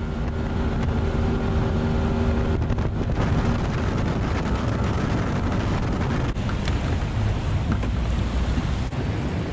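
Boat motor running under way, with wind rushing over the microphone and water splashing against the hull. A steady engine tone is clear for the first couple of seconds, then is mostly covered by the wind and water noise.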